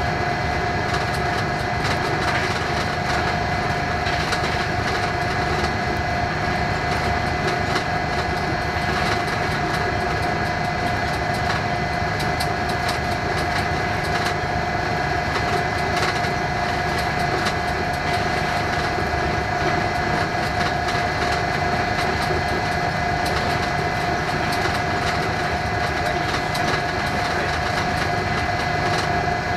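Diesel locomotive running at speed, picked up on the locomotive itself: a steady mix of engine noise, wind rush and a constant high whine, with scattered faint clicks from the wheels on the rails.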